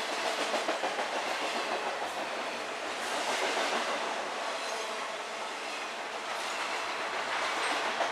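Intermodal freight train passing close by, carrying double-stack containers and highway trailers on flatcars: a steady rolling rumble with wheels clicking over the rail joints.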